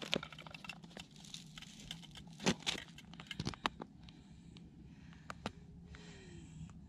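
Handling of a wooden ice-fishing tip-up at the hole: a run of sharp clicks, knocks and crunches in the first half, the loudest about two and a half seconds in, then only faint handling noise.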